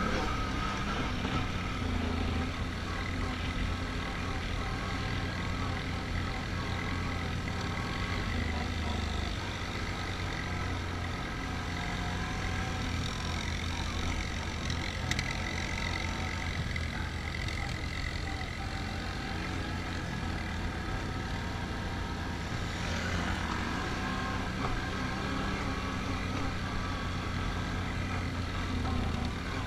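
Can-Am Outlander ATV engine running steadily while being ridden along a dirt trail, its revs holding fairly even.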